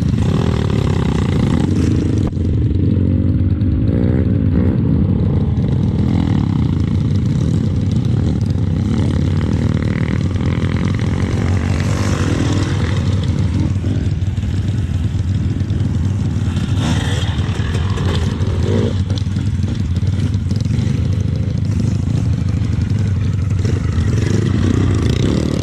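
Trail motorcycle engine running as the bike is ridden, the pitch rising and falling with the throttle, with some clattering from the bike.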